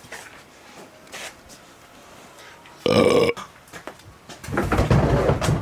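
A man's voice making two loud wordless sounds: a short pitched one about three seconds in, then a longer, low, rough one near the end.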